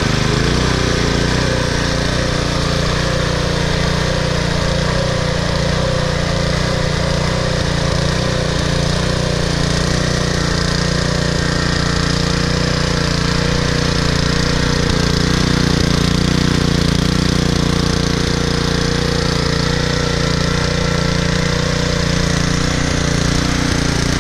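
Troy-Bilt Super Bronco rear-tine tiller's 208cc single-cylinder engine running steadily, warm, after a clogged carburetor jet was cleaned, still burning old gas.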